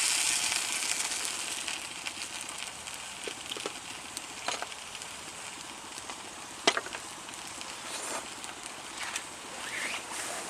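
Meat sizzling over an open fire as it goes on: a loud hiss at first that eases into steady sizzling, with crackles and a few sharp pops, the loudest about two-thirds of the way through.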